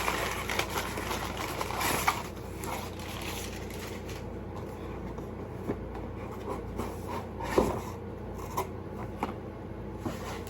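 A mailed package being handled and opened: scraping and rustling of packaging for the first two seconds or so, then scattered light taps and clicks, with one louder knock a little past the middle.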